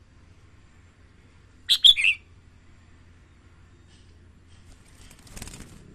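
Red-whiskered bulbul giving a short, loud burst of three quick high chirping notes about two seconds in.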